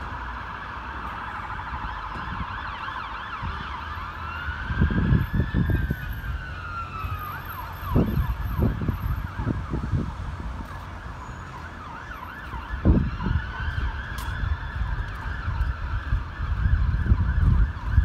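Two Scania P280 fire engines' sirens, rapidly switching through quick yelping sweeps, with two slower wails that rise and fall. Low rumbling thumps hit the microphone several times.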